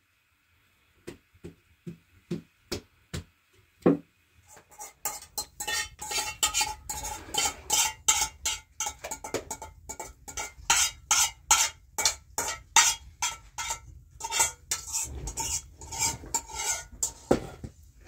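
A metal utensil stirring and knocking against metal cookware: a few scattered knocks at first, then a quick run of clinking strokes, about three a second, with a faint ring.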